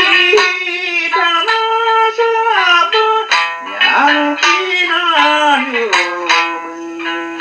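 Amami shima-uta folk song: a male voice sings a long, wavering melismatic line over plucked notes on the Amami sanshin, a three-stringed lute.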